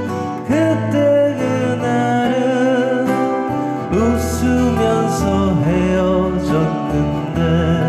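A man singing a Korean ballad with vibrato, accompanied by two strummed acoustic guitars and a steady low bass line underneath.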